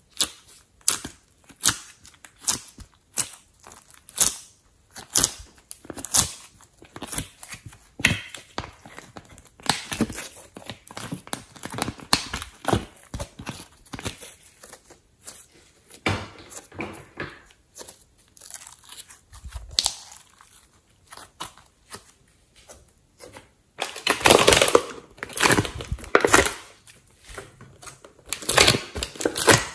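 Soft clay and slime pushed out of a silicone mould and squeezed by hand, giving a run of sharp sticky clicks and crackles, thickest near the end.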